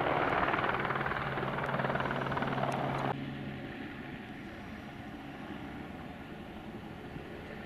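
Light single-rotor helicopter flying low, its rotor and engine noise steady with a low hum. About three seconds in the sound drops off suddenly to a much fainter steady rotor sound.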